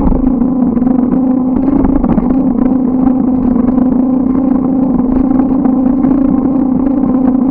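Bicycle riding along a road: a steady, even-pitched hum over a low rumble, unchanging throughout.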